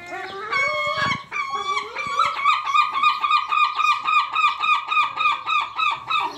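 Gull giving its long call: a few drawn-out notes, then from about two seconds in a fast run of short yelping notes, about five a second.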